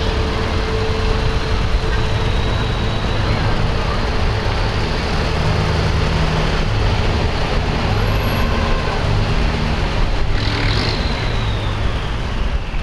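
Engines of a convoy of WWII-era military jeeps and trucks driving past at low speed, a steady engine rumble.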